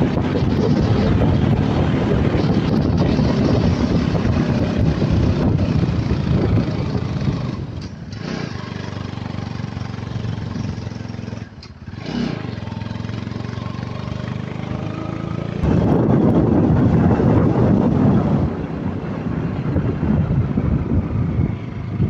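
Motorcycle on the move: its engine running under loud wind rush on the microphone. The noise dips briefly twice, about a third of the way in and about halfway through.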